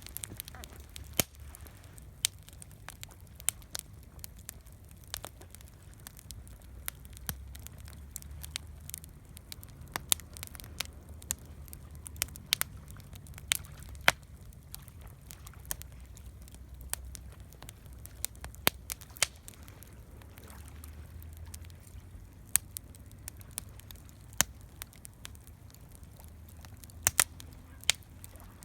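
Wood campfire crackling: irregular sharp pops and snaps over a low steady rumble of the burning fire.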